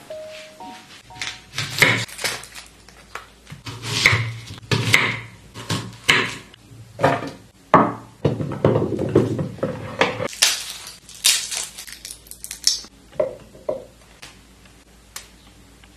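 Food-prep handling sounds: a string of sharp knocks, taps and clatters as cherry tomatoes and garlic cloves are handled on a wooden tray and go into a plastic blender jug. The clatter is busiest through the middle and thins out near the end.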